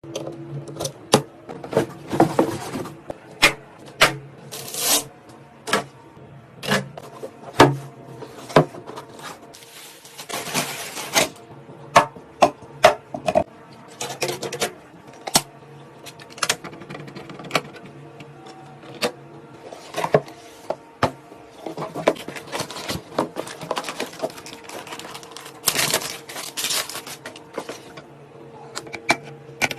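Handling noise from PC parts being assembled: irregular sharp clicks and snaps, with a few short scrapes, over a steady low hum.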